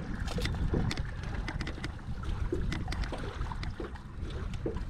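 Water lapping and trickling against a small boat's hull over a low, steady rumble, with scattered light clicks and taps throughout.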